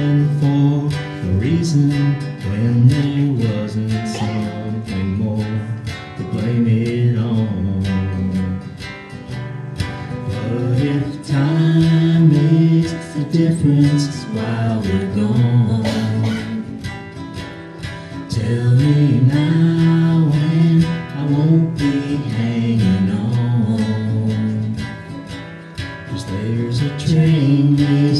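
Live acoustic guitar music: a guitar strummed steadily, with a melody line moving over it throughout.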